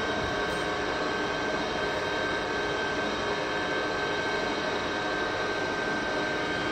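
Machinery running steadily: a continuous mechanical drone with a steady high whine, unchanging throughout.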